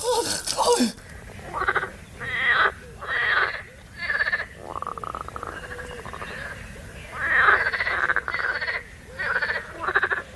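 Frogs croaking: short rasping croaks repeated a little under one a second, with one longer drawn-out buzzing call about halfway through. A short falling cry comes in the first second.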